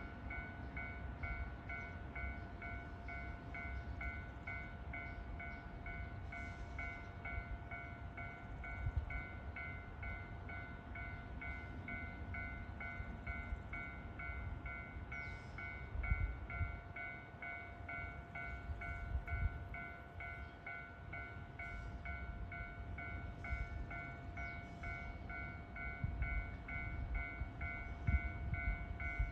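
Railway level crossing alarm ringing steadily, about two rings a second, warning that a train is approaching, over a low rumble.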